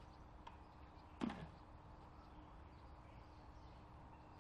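Faint outdoor ambience, with one short sound about a second in that drops quickly in pitch.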